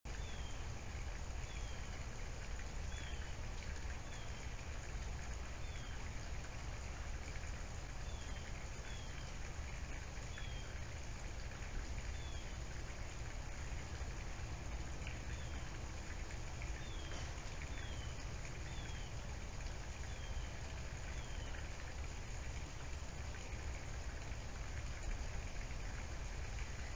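A bird repeats a short, high, falling chirp every second or so over a steady outdoor hiss and low rumble.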